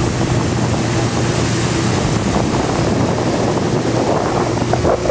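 Motorboat engine running with a steady hum, with wind noise on the microphone.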